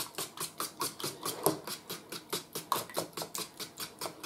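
A fork beating eggs and milk in a pan, its tines tapping the pan in rapid, even strokes, about six a second.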